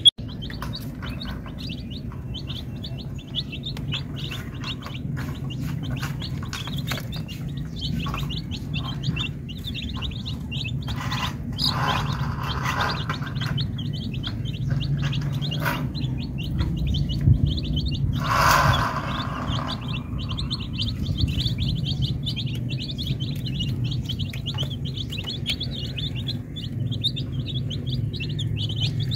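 A flock of baby chicks peeping continuously, a dense stream of short high cheeps, over a low steady hum. Two brief noisy bursts come about twelve and eighteen seconds in.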